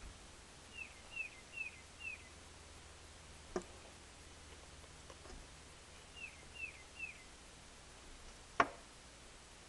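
A bird tapping its beak on window glass, two sharp taps about five seconds apart. Between them come short falling chirps, a quick run of four and later a run of three.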